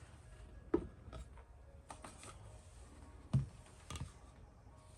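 A few light knocks and clicks as test equipment and leads are handled on a workbench, four or so spread over a few seconds, over faint room noise.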